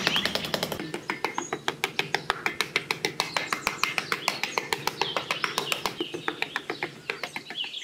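Small birds chirping over a rapid, very even run of sharp clicks, about seven a second, starting about a second in.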